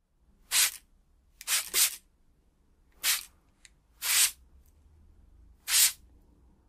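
A hand sweeping sand across a flat surface: six short swishes, two of them close together about a second and a half in.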